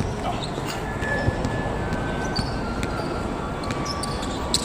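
Basketball game in play: the ball bouncing on the court and sneakers squeaking, with a few short sharp knocks over steady hall noise.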